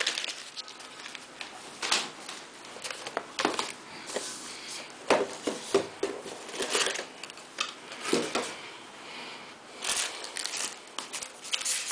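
Cardboard accessory box opened by hand and its contents handled: irregular taps, clicks and crinkly rustles of plastic-bagged cables and chargers being shifted around.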